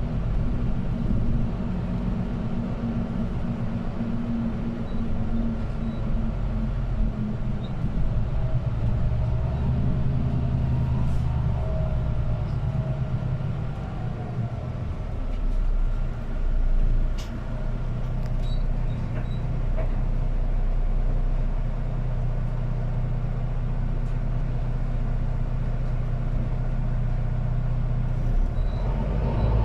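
City bus driving, heard from inside the cabin: the engine and drivetrain hum steadily, with the engine note shifting a couple of times as the bus changes speed.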